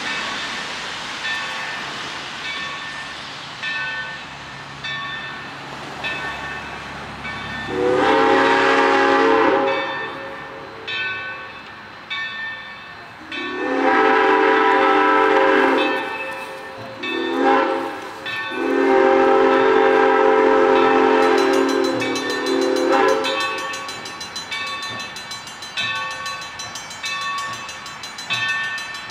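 Steam locomotive 3025's chime whistle blowing long, long, short, long, several tones sounding together: the standard signal for approaching a grade crossing. A bell rings in steady repeated strokes underneath.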